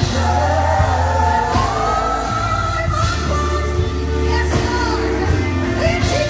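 Live gospel music: a woman sings lead over a band with a steady bass line and drums, with backing singers joining in.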